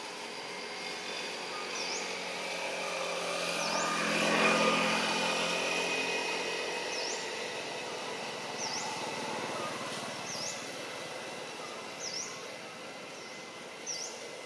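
A motor vehicle passing by, its engine swelling to its loudest about four to five seconds in and then fading away. A bird repeats a short, sharp chirp every second or so over it.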